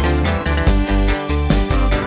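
Background music with a steady beat and deep bass pulses.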